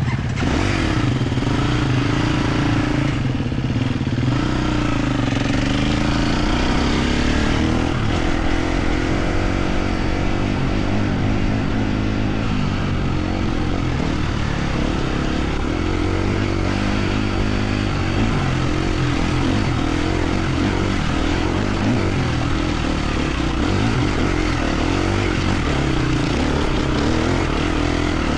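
Enduro dirt bike engine running steadily as it is ridden, the revs rising and falling a little.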